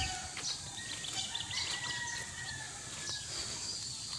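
Roosters crowing faintly, with long drawn-out calls, among other birds' short high chirps.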